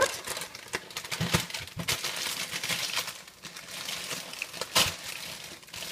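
Crinkling and rustling of a Rice Krispies cereal box and its plastic liner bag being handled and opened, with a few light knocks.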